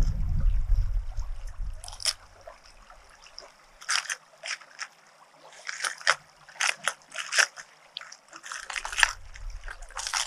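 Hard plastic fishing lures clicking and rattling against each other and the open plastic tackle box as they are picked through by hand, in a string of short clicks. A low rumble, like handling noise on the microphone, comes in during the first two seconds and again near the end.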